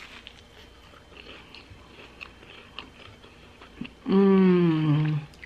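A bite into a toasted grilled cheese sandwich, then soft chewing with faint crunchy clicks. About four seconds in comes a loud, long "mmm" of enjoyment that falls slightly in pitch.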